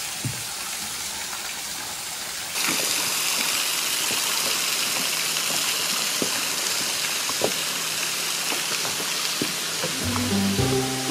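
Steady rush of water from a small waterfall and its creek, which gets louder and brighter a little over two seconds in. Acoustic guitar music comes in near the end.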